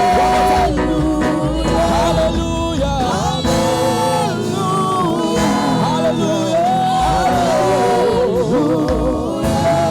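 Gospel worship music: voices singing held, wavering notes over keyboard and bass accompaniment.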